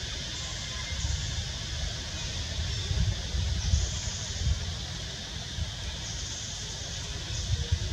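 Outdoor ambience: wind buffeting the microphone in uneven low gusts, over a steady high-pitched hiss.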